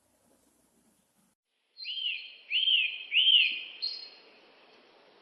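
Bird chirping: three quick, identical rising-and-falling chirps about two seconds in, with an echoing tail and a fainter fourth chirp.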